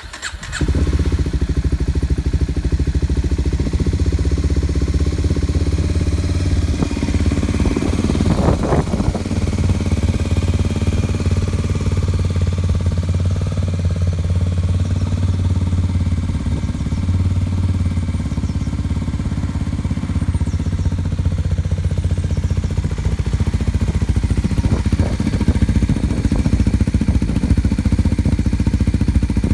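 Kawasaki Ninja 250SL's single-cylinder engine starting about half a second in, then idling steadily through its polished stainless silencer.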